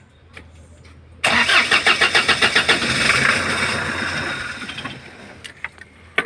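Kia Bongo III's J3 CRDi diesel engine being started: a faint low hum for about a second, then the engine fires with a sudden loud, rapid clatter that gradually dies down over the next few seconds.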